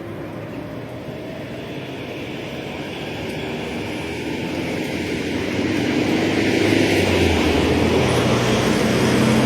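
Road vehicle noise growing steadily louder, with a low engine hum coming in about seven seconds in.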